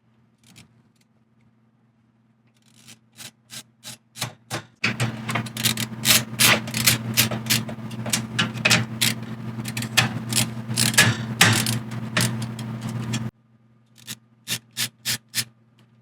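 LTT ratcheting screwdriver clicking as it drives steel screws into a PC power supply, metal on metal. A few scattered clicks at first, then a dense run of rapid clicking for about eight seconds with a steady low hum under it, then a few separate clicks near the end.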